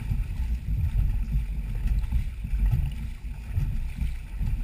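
Dragon boat moving under paddle: low rumbling water and hull noise with wind buffeting the microphone, rising and falling unevenly.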